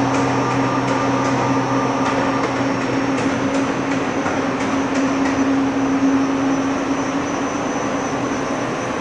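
A Dainichi BX-45 CNC lathe running with a steady mechanical hum and a faint high whine. A run of quick ticks fades out in the first second, and a few scattered ticks follow.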